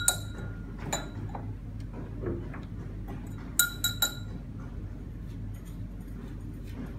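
A thin rod clinking against a small glass beaker while scooping sodium acetate powder: one ringing clink at the start, a lighter tap about a second in, and a quick run of three clinks about three and a half seconds in.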